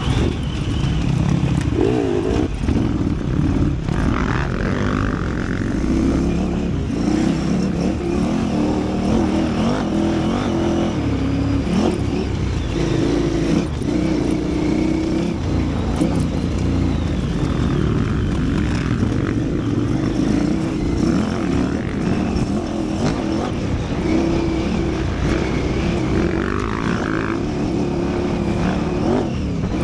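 KTM 950 Super Enduro's V-twin engine running hard off-road, its pitch rising and falling again and again as the throttle is worked.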